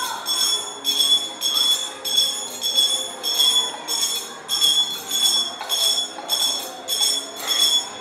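Cluster of altar bells shaken in a steady rhythm, about two shakes a second, each shake a bright jingling ring. They are rung while the priest blesses the congregation with the monstrance at benediction.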